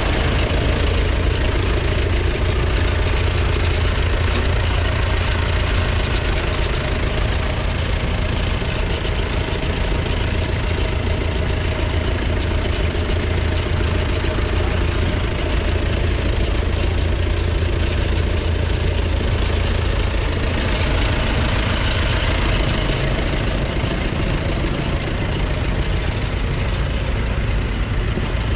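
1969 McCormick 434 tractor's 2.5-litre four-cylinder diesel engine idling steadily.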